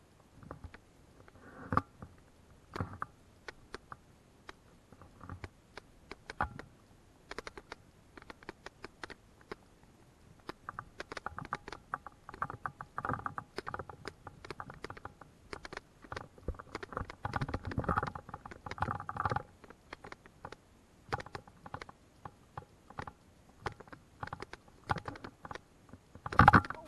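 Footsteps crunching and snapping on dry leaf litter and twigs, with rustling of undergrowth brushed past, in an irregular walking rhythm; one louder crunch near the end.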